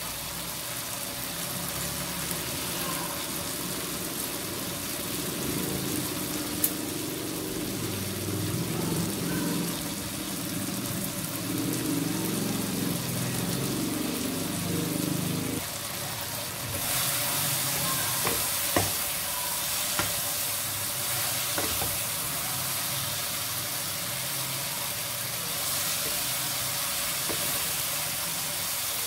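Okra and green chillies sizzling as they fry in oil in a kadai, with a few sharp clicks of a spatula against the pan. The sizzle grows brighter a little over halfway through.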